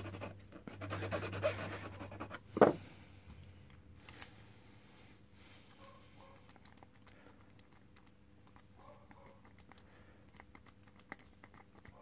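A round file rasping across a key blank in short strokes, then a single sharp knock about two and a half seconds in. After that come faint, scattered metallic clicks as the key is worked in the padlock to raise impression marks on the cuts.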